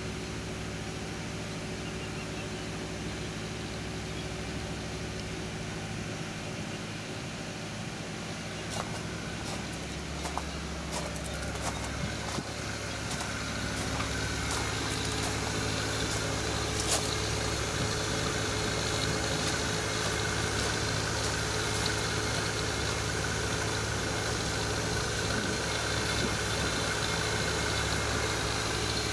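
An engine running steadily at idle, getting louder about halfway through, with a few sharp clicks and knocks.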